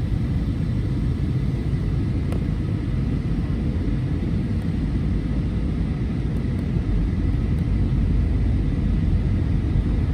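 Steady low rumble of a moving vehicle, even throughout with no changes in pitch.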